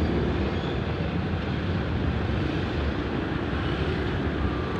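A vehicle's engine and road noise while driving: a steady low rumble.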